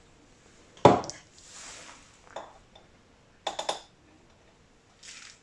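A spoon knocking and clinking against kitchen dishes while spices are measured out: one sharp knock about a second in, a soft rustle after it, then a quick run of clinks about halfway.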